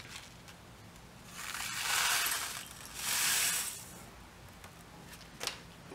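Potassium iodide crystals sliding off a folded paper into a small glass beaker, in two pours of about a second each. A light click follows near the end.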